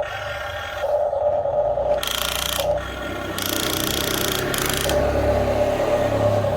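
Electric motors of a toy RC excavator whining in stop-start runs, broken twice by bursts of gritty scraping and grinding.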